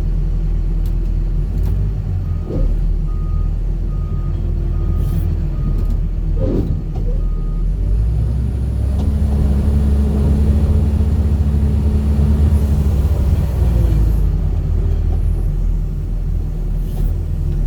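Diesel engine of a heavy earthmoving machine running, with a reversing alarm beeping steadily for about five seconds. About eight seconds in, the engine revs up under load for several seconds as it pushes material, then settles back.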